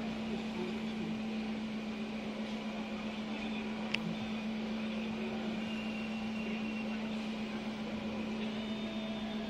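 Steady hum of an idling car heard inside the cabin, with a single sharp click about four seconds in.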